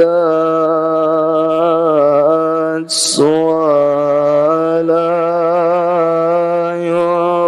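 A man chanting Arabic verses slowly, with no accompaniment, holding each long note with only slight shifts in pitch and a short hissing 's' about three seconds in.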